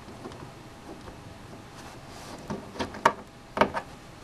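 Small plastic gashapon Gundam figure handled and posed on a hard plastic mat: quiet fiddling, then a few sharp plastic clicks and taps in the second half.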